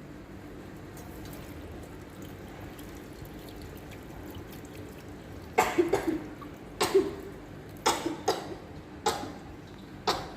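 A person coughing: about seven short coughs, some in quick pairs, starting about halfway through. A faint steady hum runs underneath.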